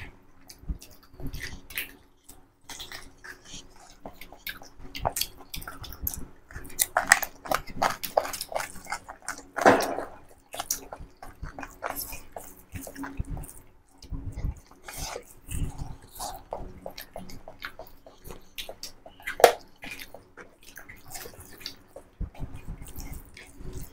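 Close-up eating sounds: wet chewing and lip smacks, and fingers squishing rice and chicken curry on plates as two people eat by hand. Irregular short clicks and smacks, with a louder mouth sound about ten seconds in and another near the end.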